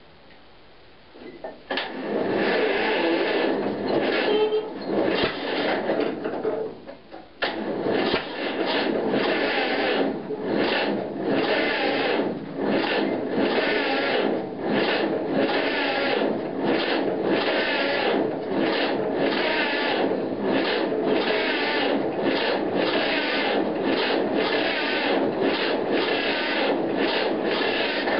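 Electric starter cranking the cold two-cylinder engine of a 1951 John Deere Model A, grinding it over with a regular pulse from each compression. The engine turns over without catching; the owner suspects he has flooded it. Cranking starts about two seconds in and stops briefly near seven seconds before running on.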